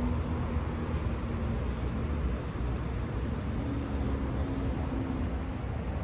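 Steady low engine rumble with a faint hum that fades in and out.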